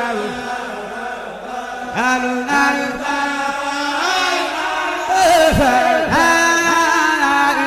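Vocal chant: a voice singing long held notes that bend and slide between pitches, with no speech.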